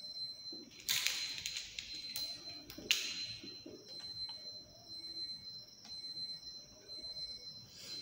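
Connecting wires being handled: clicks and rustles as crocodile-clip leads are untangled and clipped onto terminals, with louder scraping clatters about a second in and near three seconds. A faint steady high whine runs underneath.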